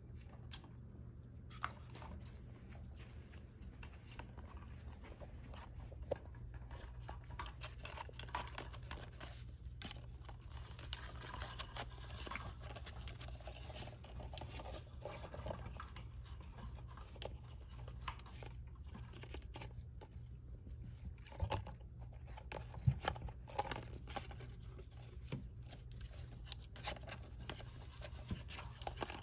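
Small dog tearing and chewing a cardboard toilet-paper roll to get at the treat tucked inside: scattered soft crinkling, tearing and crunching clicks, with a few sharper snaps a little past the middle, over a low steady hum.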